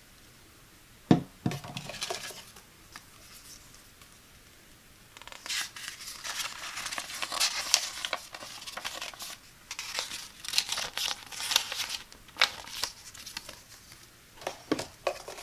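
Paper instruction leaflet rustling and crinkling as it is unfolded and handled, in long stretches through the middle. A sharp knock about a second in, as the chrome shower filter is set down on the table, and a few light knocks near the end.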